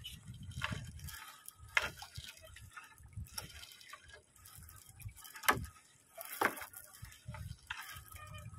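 Wet gill net being hauled by hand over the side of a boat, seawater dripping and splashing off the mesh, with scattered sharp drips, the loudest about five and a half seconds in.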